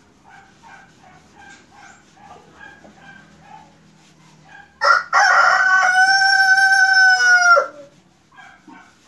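A rooster crows once, a single loud call of about three seconds, starting about halfway in and dropping in pitch as it ends. Before it, faint short sounds repeat about twice a second.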